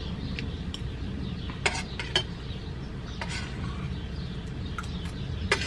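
Metal spoon clinking and scraping against an enamel plate: a few sharp clinks about two seconds in and again near the end, over a steady low background rumble.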